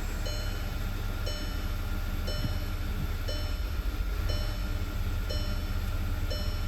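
Volkswagen Passat CC's 2.0 TSI four-cylinder (CCTA) engine running at idle with a low rumble, the car misfiring and its revs swinging up and down at idle. Over it, a dashboard warning chime repeats about once a second.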